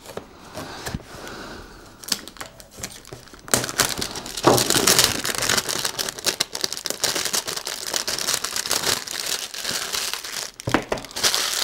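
Unboxing sounds: a knife scraping through the seal of a small cardboard box, then, from about three and a half seconds in, loud continuous crinkling and tearing of the packaging as the box is opened and handled.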